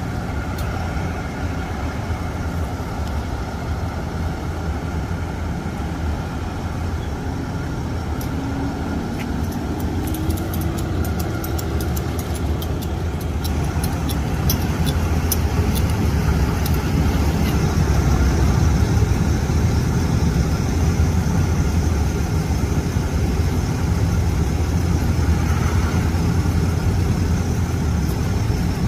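Tow truck engine idling steadily close by, a little louder in the second half.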